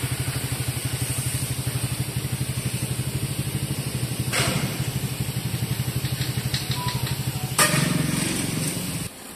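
Renault DXi 11 inline-six truck diesel engine idling with an even, rapid pulsing beat. A sharp knock comes about four seconds in and another about seven and a half seconds in. After the second knock the running sound is louder for over a second, then cuts off abruptly near the end.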